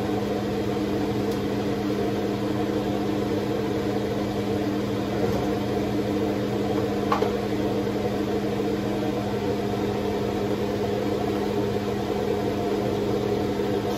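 Thick-cut bacon sizzling in an electric skillet: a steady hiss over a constant low hum, with one faint click about seven seconds in.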